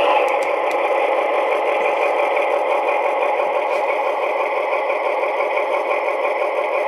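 Diesel engine sound from a model locomotive's DCC sound decoder, played through its small loudspeaker and running steadily. It has a thin, bass-less tone.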